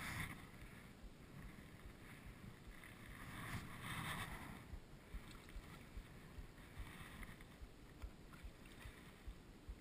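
Faint wind buffeting the microphone and water sounds around a small boat, with a louder rustling swell for about a second near the middle.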